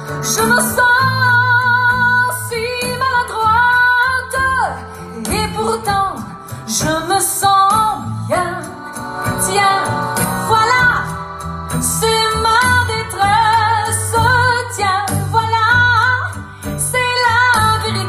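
A French song with a woman singing long, wavering held notes over a steady bass line, played loud through a TPA Shark TP 450 10-inch line array driven by P181SP active 18-inch subwoofers.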